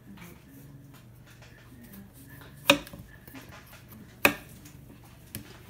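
Chef's knife slicing a cucumber on a wooden cutting board: two sharp knocks of the blade striking the board about a second and a half apart, and a fainter one near the end. A low steady hum runs underneath.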